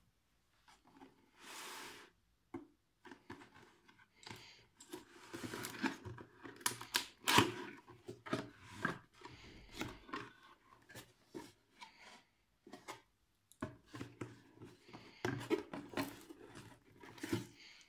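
Cardboard camera packaging being handled and opened: an outer sleeve slid off the box and inner flaps folded back, with irregular rustles, scrapes and taps, loudest about seven seconds in.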